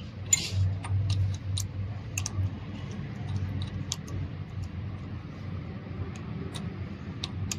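Light metallic clicks and taps at irregular intervals, from small parts and tools being handled while a diesel fuel injection pump is put back together, over a steady low hum.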